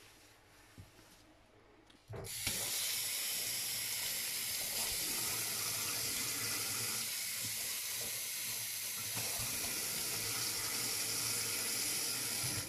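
Kitchen tap turned on about two seconds in, its stream running steadily onto the drain of a stainless steel sink, then stopping near the end.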